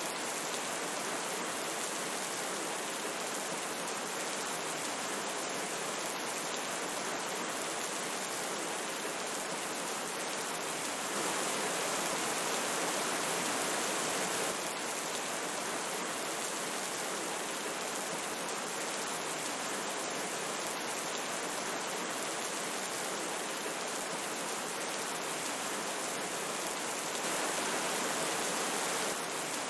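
Steady rushing hiss of rain falling together with a flowing river. It grows slightly louder for a few seconds about eleven seconds in and again near the end.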